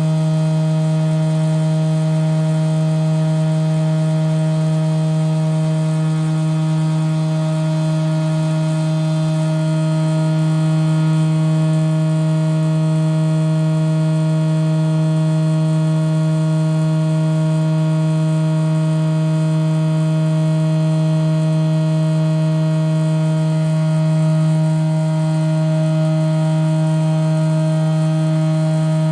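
CT scanner gantry spinning at a steady speed: a steady hum with a strong low tone and a ladder of higher overtones, its pitch holding level throughout.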